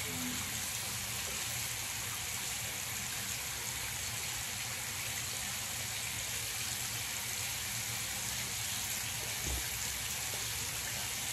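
Bathroom sink tap left running, a steady even hiss of water.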